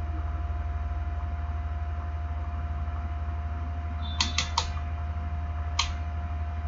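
Steady low electrical hum with a faint steady whine, and small sharp clicks from a handheld digital multimeter being handled: three quick clicks about four seconds in and one more near six seconds.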